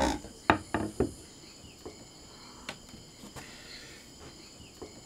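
Steady high-pitched trilling of a rainforest insect chorus, with a few short sharp sounds in the first second.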